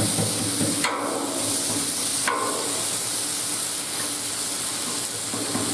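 Cauliflower rice sizzling and hissing on a hot, oiled Blackstone flat-top griddle while a metal spatula works it, clacking on the steel twice, about one and two seconds in.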